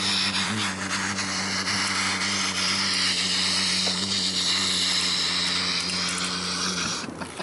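A small motor, most likely in a toy rocket-launcher truck, whirring steadily over a rough, hissing scrape. It cuts off suddenly about seven seconds in.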